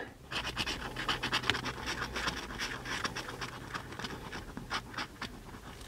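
Scratch-off lottery ticket being scratched: rapid, repeated short scraping strokes across the card's coating, stopping near the end.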